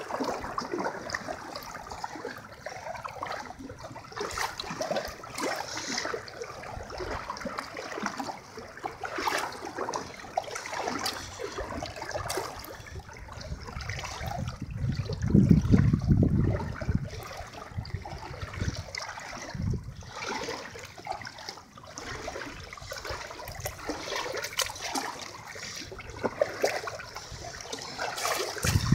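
Floodwater sloshing and splashing as someone wades through a strong current. About halfway through, a louder, deeper rush of sound lasts a couple of seconds.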